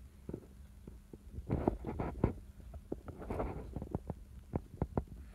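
A relaxed cat purring close up: a low throbbing rumble, with soft irregular clicks and rustles that bunch up about one and a half to two and a half seconds in and again around three and a half seconds.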